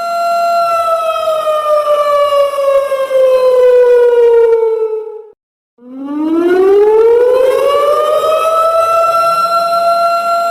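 Siren alarm tone, one loud pitched wail with overtones. It holds steady, then slides slowly down in pitch over about five seconds and breaks off abruptly for about half a second. It comes back low and climbs back up to the same pitch, holding there near the end.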